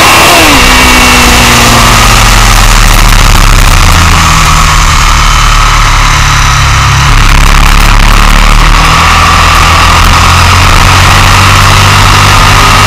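Sport motorcycle at track speed, heard from a camera mounted low on the bike: heavy wind rush over the engine. The engine note drops sharply about half a second in, then holds steady, starting to climb slowly near the end.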